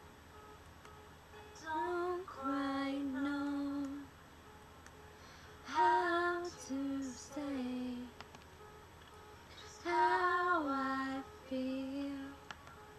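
A woman singing three held, sliding phrases without clear words, with pauses between them.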